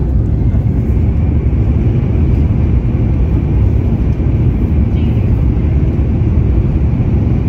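Steady engine and airflow noise inside the cabin of a Boeing 737 MAX 9 climbing after takeoff, heaviest at the low end.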